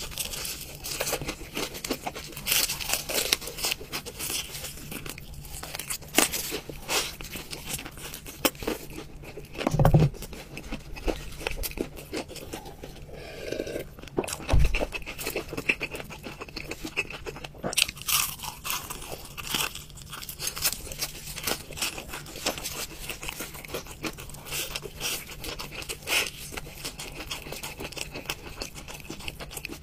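Close-miked eating of crispy fried chicken: biting, tearing and crunching of the crust and chewing, in a dense run of crackles. A drink is taken from a glass mug about halfway, and two dull thuds come about ten and fifteen seconds in.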